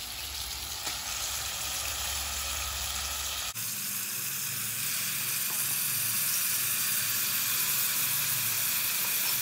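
Chicken and masala sizzling steadily in hot oil in a pressure cooker as soaked basmati rice is dropped in. The masala has been cooked down until the oil separates.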